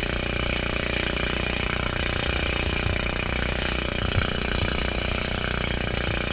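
Engine of the motorboat towing the banana boat running steadily at speed, over the rush of water and spray.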